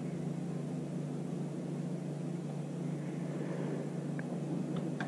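Steady low hum and hiss of background room noise, with a few faint short ticks near the end.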